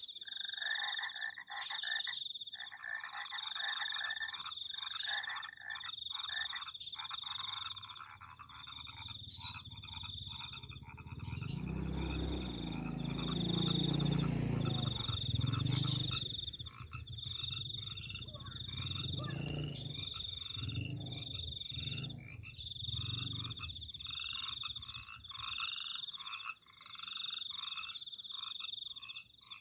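Night chorus of frogs calling, with a high, pulsing trill repeating over and over. In the middle a louder low sound of shifting pitch swells up and fades away over several seconds.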